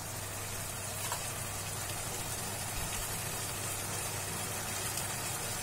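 Onion, capsicum and sauces sizzling steadily in a hot wok, a soft even hiss.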